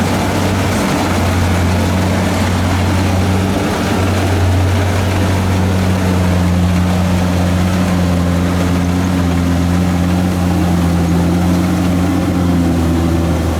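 Kubota DC-70 rice combine harvester running steadily, its diesel engine giving a constant low hum with a broad mechanical rush over it.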